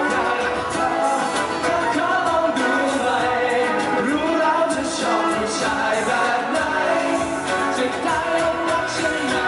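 A Thai pop song performed live: men's voices singing into microphones over a strummed acoustic guitar.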